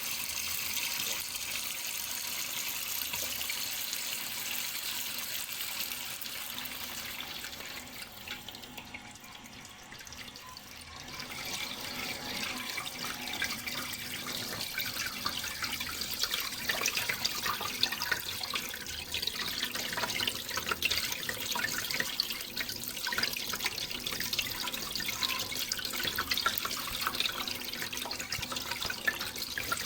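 Flowing water running and splashing steadily. It eases off for a few seconds near the middle, then comes back with busier splashing.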